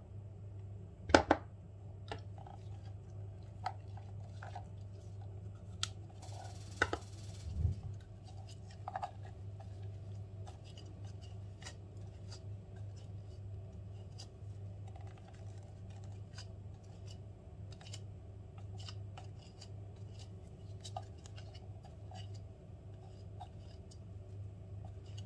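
Light clicks, taps and scrapes of a plastic food-chopper bowl and gloved hands as a chopped onion, parsley and spice mixture is scraped out onto minced veal, with a sharp click about a second in and a short rustle and knock a few seconds later. A steady low hum lies underneath.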